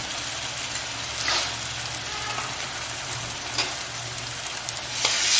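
Onions and ginger-garlic paste frying in ghee in a hammered metal kadhai: a steady sizzle with a couple of faint clicks, getting louder about five seconds in.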